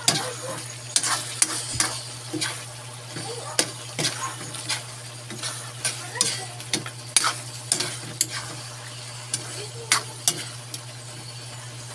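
Metal spatula scraping and tapping against a pan while chicken and pineapple pieces are stirred in a simmering sauce, over a steady sizzle. The sharp scrapes and knocks come irregularly, several a second at times.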